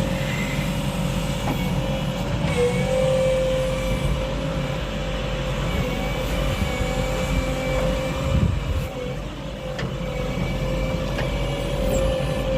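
JCB 3DX backhoe loader's diesel engine running steadily, with a steady whine and a few short clicks.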